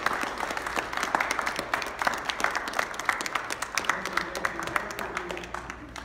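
Small audience applauding, the clapping thinning out and dying away near the end.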